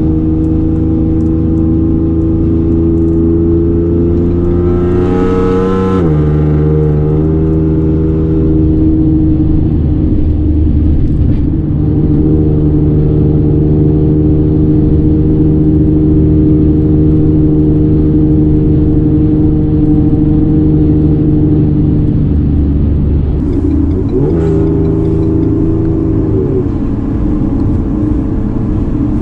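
A straight-piped 2018 Ford Explorer Sport's twin-turbo V6 (catless downpipes, X-pipe, Borla S-Type cat-back) runs loud inside the cabin at highway speed. Its pitch climbs under acceleration for about six seconds and then drops with an upshift. It holds steady, then briefly rises and drops again near the end. Wheel bearing noise sits under the exhaust.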